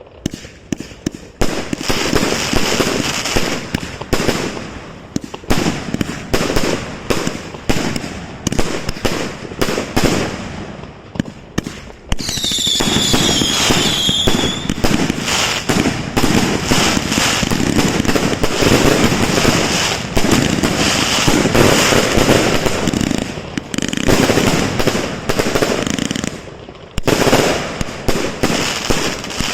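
Fireworks going off in rapid, dense volleys of bangs and crackling. About halfway through, a shrill whistle sounds for about two seconds, dipping slightly in pitch, over the bangs. The barrage slackens briefly twice near the end before picking up again.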